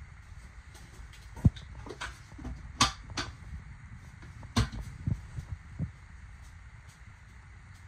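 Sharp plastic clacks and knocks, about six in four seconds, as an RV toilet's lid is lifted and lowered, along with handling bumps.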